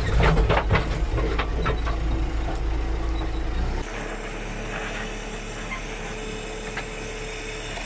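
JCB 3CX backhoe loader's diesel engine running, heard from the cab on the move, with knocks and rattles. About four seconds in the sound cuts to a quieter, steady engine hum with a faint whine as the machine stands at the dig.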